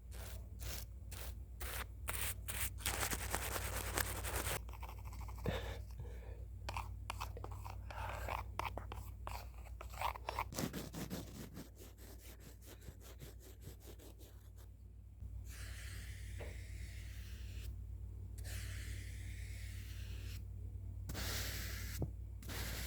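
Close-miked ASMR trigger sounds. A run of quick taps and crunches is followed by longer scratching and brushing passages with short pauses between them.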